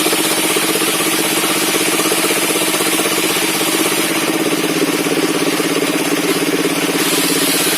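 Engine-driven circular-saw sawmill running steadily, its engine giving a fast, even pulsing with a steady hum and high hiss.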